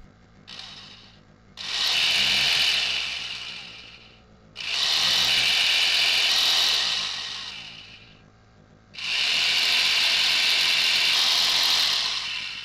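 Corded electric jigsaw run unloaded: a brief blip, then three trigger pulls of two to three seconds each, the motor and blade coming up to speed at once and spinning down after each release.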